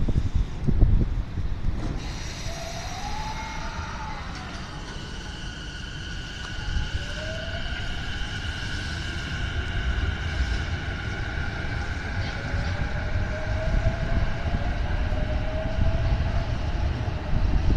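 E233 series 5000-subseries electric train pulling away from the platform: its VVVF inverter and traction motors give a whine that glides upward in pitch as it accelerates, over a low rumble of wheels on rails. A few low gusts of wind hit the microphone at the start.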